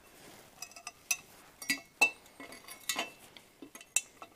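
Irregular light metallic clinks and taps as an FMF Megabomb exhaust header and its flange nuts are handled and loosely fitted by hand to a motorcycle's cylinder head. One clink rings briefly about two seconds in.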